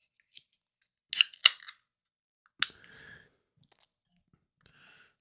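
Aluminium drink can being opened: a few sharp metallic clicks as the pull tab is worked, then a sharp crack and a short hiss of escaping fizz as the can pops open.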